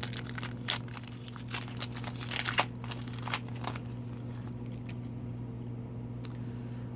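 A hockey card pack's wrapper crinkling and being torn open, a flurry of sharp crackles over the first few seconds, then dying away to a faint steady low hum.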